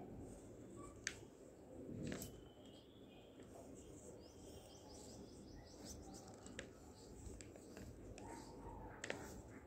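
Near silence: faint room noise with soft pencil-on-paper scratching and a few light clicks, and a short run of faint high chirps about four seconds in.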